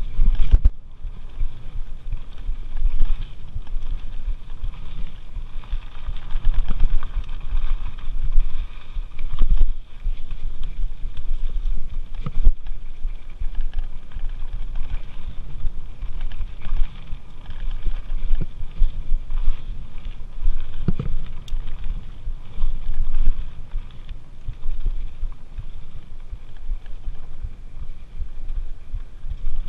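Mountain bike riding fast over dirt singletrack: steady rumble and rattle from the tyres and bike over the rough trail, with a few sharper knocks, mixed with wind on the camera microphone.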